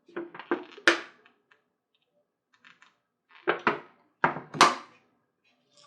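Sharp clacks and knocks of hard objects being handled and set down on a workbench: three quick ones, a pause, then four more.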